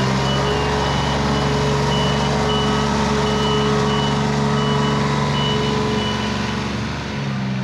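A heavy vehicle's reversing alarm beeping just under twice a second over its steadily running engine; the beeping stops about six seconds in while the engine keeps running.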